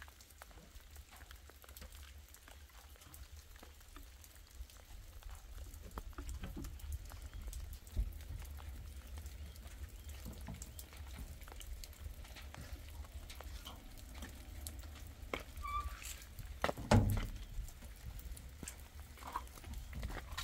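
Rain dripping and pattering in small scattered clicks over a steady low rumble. A brief animal call sounds a little past the middle, and a single loud, dull thump comes soon after.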